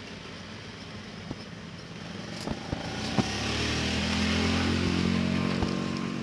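A small engine passing by: it grows louder from about two and a half seconds in, is loudest around five seconds, then begins to fade. A couple of short clicks come early in the rise.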